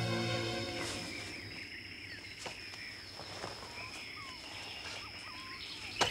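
Music fading out within the first second, then jungle ambience: scattered short bird chirps over a steady high insect whine, with a sharp knock just before the end.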